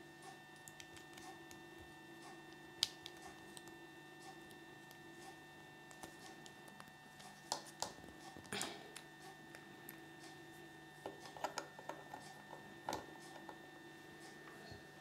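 Small plastic Kinder Surprise toy figures being handled by fingers, giving scattered light clicks and taps: one near three seconds in, a cluster around the middle, and another a few seconds later. A steady electrical hum runs underneath.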